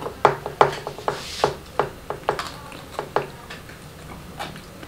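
Sharp, irregular clicks and taps of a spoon and dishes against ceramic and glass tableware during a meal. They come thick and fast for about three seconds, then thin out to a few scattered ones.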